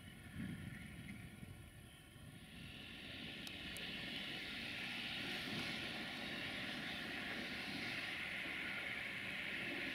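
Diesel locomotive engine running, growing louder a few seconds in and then holding steady.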